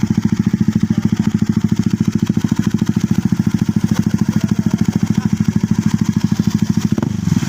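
Honda CBR150 single-cylinder four-stroke engine idling through an aftermarket exhaust, a steady, even run of exhaust pulses.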